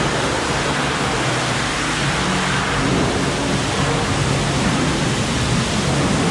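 High-pressure water jet spraying onto a truck's bodywork to rinse off dirt loosened by the cleaning chemical: a steady hiss of spray, with a low hum underneath.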